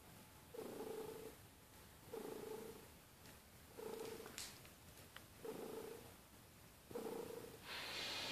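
Domestic cat purring in rhythmic surges about every second and a half, with each breath, while a lovebird preens the fur of its head. A brief high sound comes about four seconds in, and a steady hiss sets in near the end.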